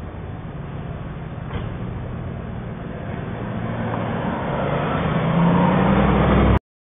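A car approaching along the street and passing close by fast, its engine and tyre noise growing steadily louder to a peak near the end, heard through a security camera's microphone. The sound cuts off suddenly just before the end.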